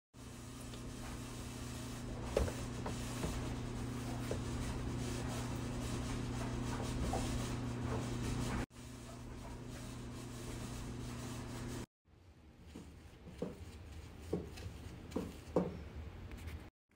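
Stand mixer motor running steadily with a low, even hum as it mixes bread dough, stopping about two-thirds of the way in. After that come a few light scrapes and rubs against a glass loaf pan.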